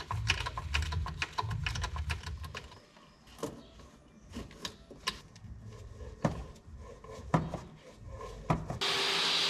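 A wooden floor panel being handled and fitted: irregular knocks, taps and scraping of wood. Near the end a motor starts up and runs steadily.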